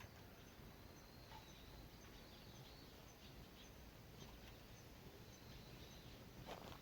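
Near silence: faint outdoor ambience with a faint high chirp repeating about twice a second and a few soft ticks.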